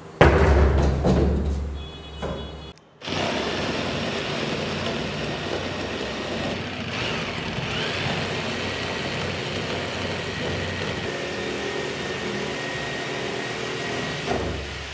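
An electric jigsaw cuts through the top of an empty plastic drum, a steady buzzing saw noise lasting about twelve seconds. Before it, at the start, there is a loud thud and low rumble as the hollow plastic drum is tipped over onto the floor.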